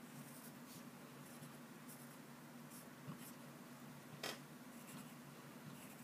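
Pencil scratching on paper in a series of short strokes as small legs are drawn, with one brief louder tap a little past the middle, over a faint steady low hum.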